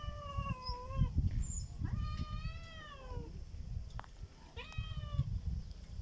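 Domestic cat meowing three times: a drawn-out meow ending about a second in, a longer one that rises and then falls, and a short one near the end. A low rumbling noise runs underneath.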